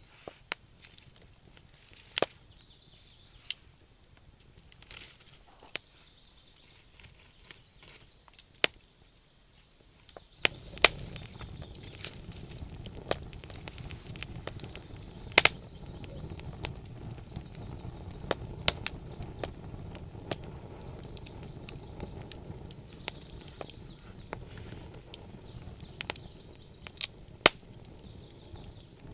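Wood fire burning in a fireplace, crackling with irregular sharp pops, several of them loud. A low steady rush sets in suddenly about ten seconds in and eases near the end.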